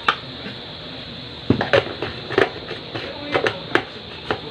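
Sharp clicks and light knocks from handling a plastic feeding bottle and water container on a table, about half a dozen from a second and a half in, over a steady hiss.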